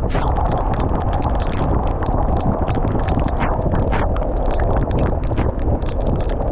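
Heavy rain and wind buffeting the microphone in a downpour. It is a loud, steady rush with rapid, irregular taps of raindrops striking close to the microphone.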